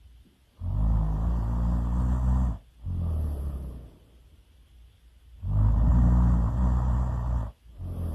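A person snoring loudly in a slow rhythm: two long snores of about two seconds each, each followed by a shorter, softer breath out.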